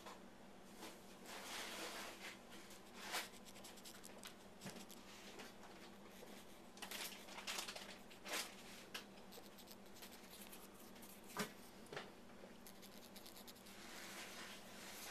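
Faint scratching and rubbing of a cotton swab wiping excess ferrofluid off the metal top plate around a tweeter's voice-coil gap. A few sharp clicks are scattered through it, over a faint steady low hum.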